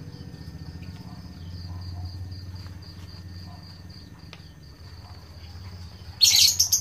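Steady insect chirping, an even train of quick high pulses, over a low steady rumble. Near the end comes a short, loud burst of hiss.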